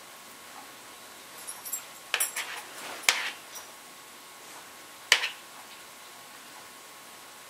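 A metal spoon clinking and scraping against a ceramic bowl of beaten raw egg: a cluster of light clinks about two seconds in, a sharper clink a second later, and one more about five seconds in.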